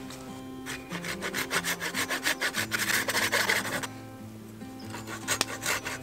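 Hand saw cutting through a wooden branch in quick back-and-forth strokes, about four a second, for some three seconds, then a shorter run of strokes near the end.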